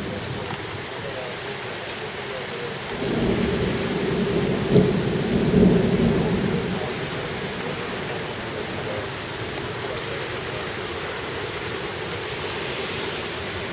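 Steady heavy rain, with a rolling rumble of thunder that builds about three seconds in, peaks twice and dies away a few seconds later.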